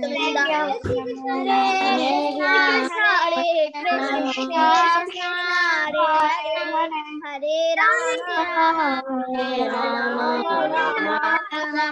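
A child singing devotional prayers in a steady chant, heard over a video call.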